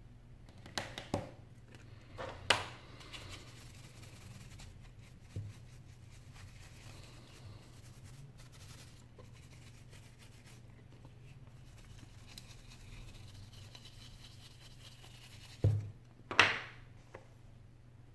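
Hands handling small metal iPhone 6 parts, with sharp clicks and taps as pieces are set down on a rubber desk mat, two of them loudest near the end. In between, a paintbrush sweeps dryly over the phone's metal display backplate, over a low steady hum.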